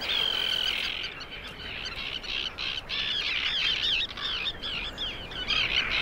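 A breeding colony of terns screaming: many harsh, overlapping calls, one after another.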